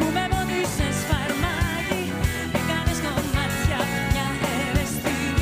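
Live band of drum kit, electric guitar and keyboard playing a Greek pop song with a steady drum beat, a woman singing over it.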